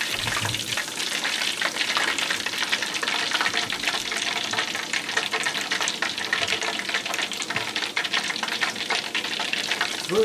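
Battered red pepper slices deep-frying in a pot of hot oil: a steady, dense crackling sizzle of many fine pops.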